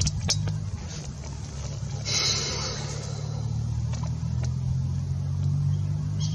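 A steady low mechanical hum like an idling engine, with a brief hiss about two seconds in and a few faint clicks.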